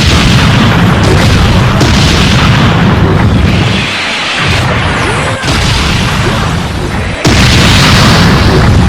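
Dragon Ball Z-style anime fight sound effects: a continuous, loud barrage of booming blasts and impacts, with a sudden new burst about seven seconds in.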